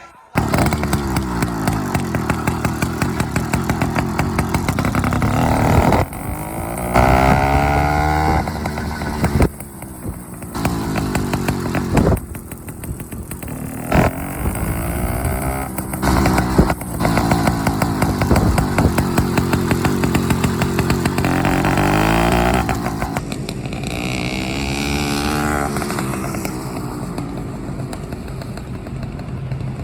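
Two-stroke motorized bicycle engine running and revving, its pitch rising and falling again and again. The sound breaks off abruptly several times, as short clips are joined one after another.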